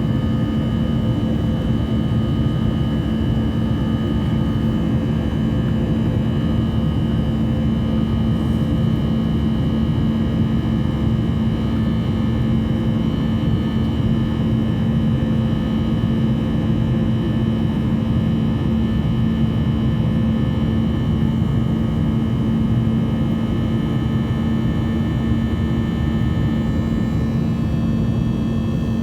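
Steady jet engine noise heard inside the cabin of a Boeing 737-800, from its CFM56-7B turbofans. A strong low hum carries a steady drone and fainter high whining tones; near the end some of the high tones shift in pitch.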